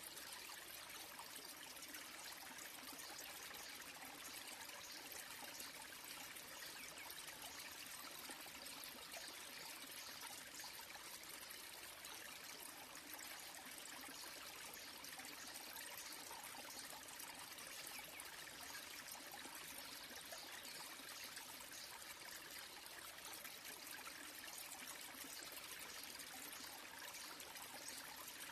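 Small waterfall trickling steadily onto rocks: a faint, even splashing of falling water.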